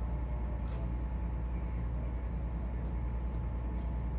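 Steady low drone of a ship's machinery heard on the bridge, with a faint constant higher hum over it.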